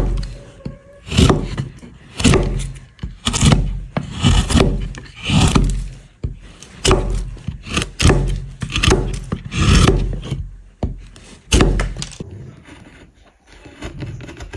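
A hand chisel shaving and slicing wood on a fish carving, one cutting stroke about every second, each a short scrape that starts sharply. The strokes turn lighter and smaller near the end.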